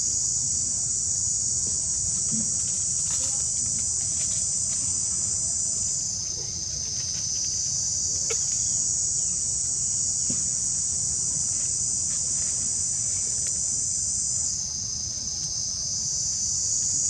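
A steady, high-pitched drone of insects calling in chorus, shifting slightly in pitch twice, with a few faint ticks.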